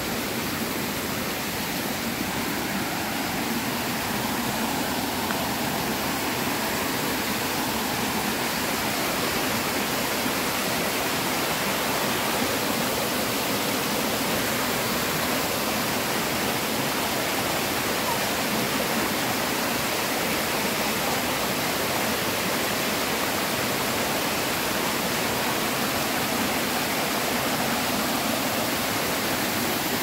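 Water rushing steadily over rocks in a small waterfall and rocky stream.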